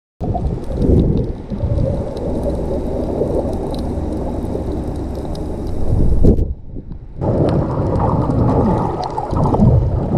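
Muffled underwater rumble and gurgling, as heard by an action camera inside its waterproof housing while it moves through the water. It breaks off for a moment about six and a half seconds in, then resumes.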